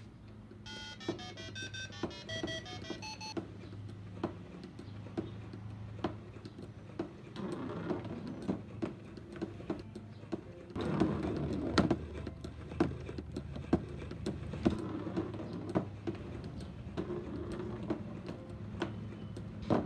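A short electronic beep melody of changing notes plays about a second in. After it, a cardboard hammer obstacle driven by a gearbox motor knocks about once a second. Around the middle, a golf ball is putted and rolls along the cardboard for about four seconds.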